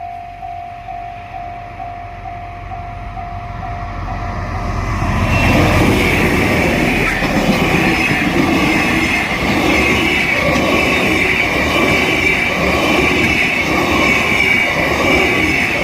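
A level-crossing bell dings about twice a second. About five seconds in, a freight train hauled by a DF200 diesel-electric locomotive comes through at speed and buries the bell: the wagons pass with a rhythmic clatter over the rail joints and a steady high wheel squeal.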